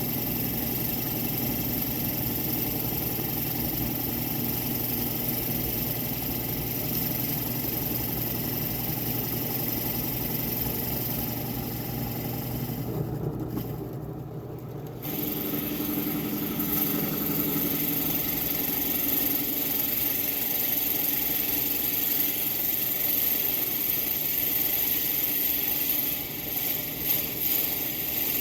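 Electric motor of a power tool running steadily with a whirring hum. It falls away for about two seconds roughly halfway through, then runs again a little louder at a different pitch.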